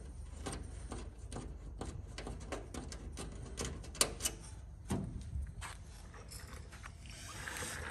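Faint, scattered clicks and taps of small metal hardware, a washer and screw, being handled and fitted against the aluminium fuselage structure, with a sharper tap about four seconds in and another about a second later.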